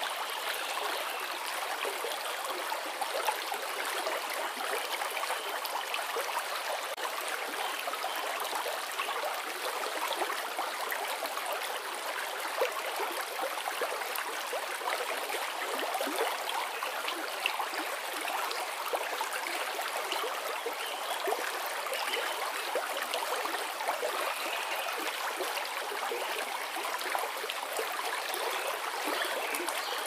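Shallow stream babbling steadily, a dense even patter of small trickles and gurgles with no deep rumble.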